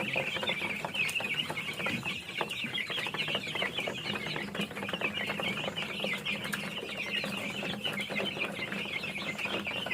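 A flock of young chickens in a coop calling continuously, many short clucks and chirps overlapping into a steady chatter.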